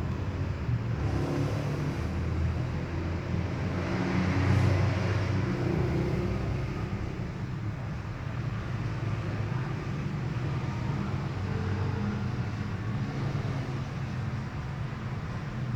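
A motor vehicle's engine running, a low steady rumble that swells briefly about four to five seconds in.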